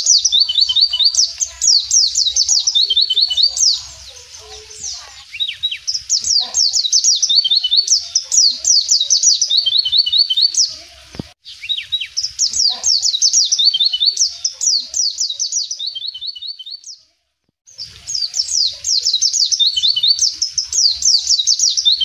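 White-eye (pleci) singing in long, fast runs of high, quick down-slurred chirps, several seconds each, with a short pause about three quarters of the way through.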